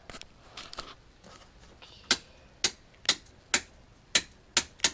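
A run of sharp clicks or taps, about two a second, starting about two seconds in.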